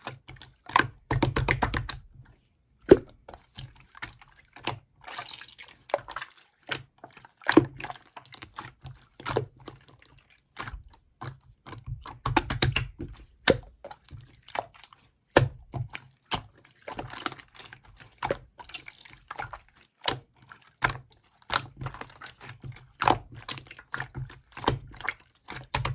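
Slime being squeezed, stretched and poked by hand, making quick runs of small sticky clicks and pops in irregular bursts, some with a soft low thump.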